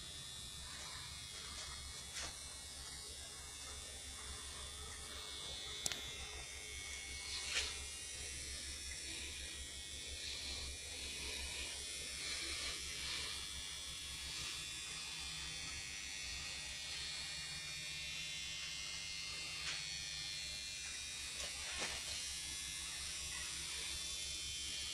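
A steady low electrical buzz, with a few faint, irregular clicks.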